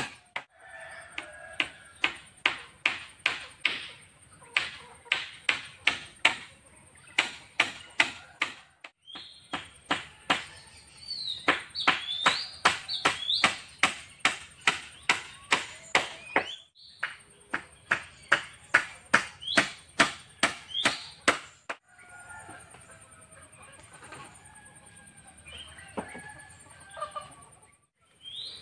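Hammer blows on a rough wooden pole roof frame, rapid and even at about two to three strikes a second, in several stretches with short breaks. Near the end the hammering stops and birds chirp, with a thin steady high-pitched tone in the background.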